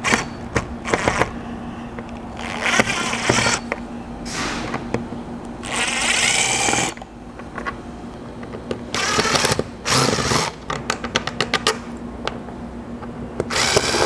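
Cordless drill-driver running in short bursts, one lasting about a second, as it backs Phillips-head screws out of the factory roof rack's corner feet. A quick run of clicks comes about three-quarters of the way through.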